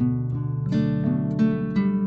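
Background music: acoustic guitar being plucked and strummed.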